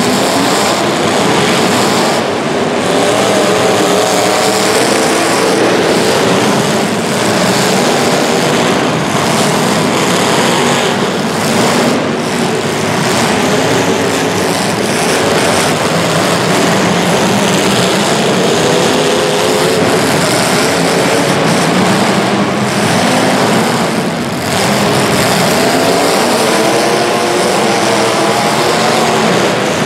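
Several racing vehicle engines running continuously through a race heat, their pitches rising and falling as they accelerate and slow.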